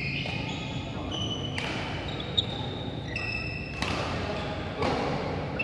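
Sports shoes squeaking on a badminton court mat in many short, high squeals, with a few sharp smacks of rackets hitting the shuttlecock, the one about two and a half seconds in the loudest.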